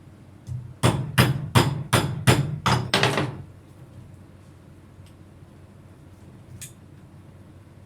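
A series of seven hand-hammer blows, about three a second, with a single faint click a few seconds later.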